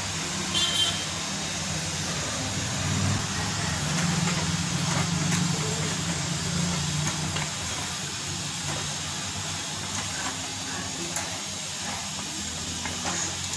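A spoon stirring yogurt into a thick mushroom masala in a pressure cooker, with a few faint light scrapes. Under it runs a steady low mechanical hum.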